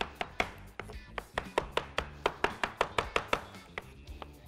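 Kitchen knife chopping and mashing roasted eggplant on a wooden cutting board, in quick, even strokes about five a second, over soft background music.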